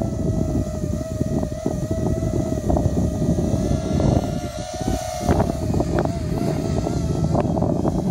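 Quadcopter's four Emax 2204 brushless motors and triblade propellers whining steadily in flight, the pitch wavering slightly and rising briefly about five seconds in, over low wind rumble on the microphone.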